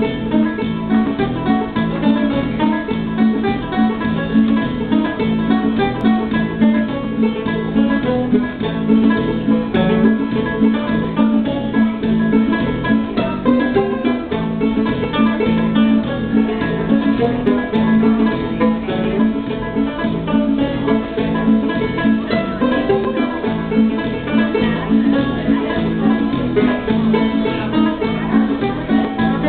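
Banjo being played: a steady, unbroken stream of quick plucked notes.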